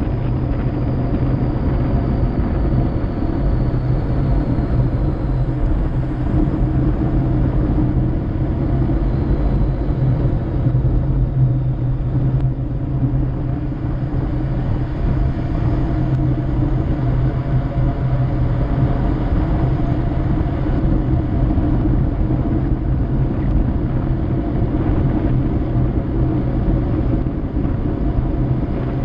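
Steady rush of wind on the microphone and tyre rumble on asphalt from a bicycle descending at speed, a constant low roar with no breaks.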